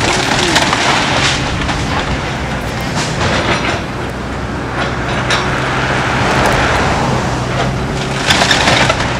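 Excavator demolishing a wooden frame house: timber cracking and splintering in repeated bursts, loudest near the end, over the steady rumble of diesel engines running.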